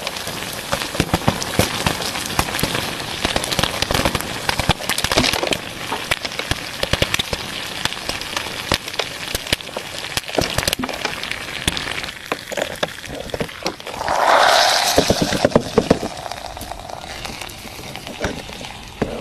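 Popcorn kernels crackling and popping rapidly in many irregular small cracks over a steady sizzling hiss, under a very hot ball. About fourteen seconds in, the hiss swells into a louder surge for a couple of seconds.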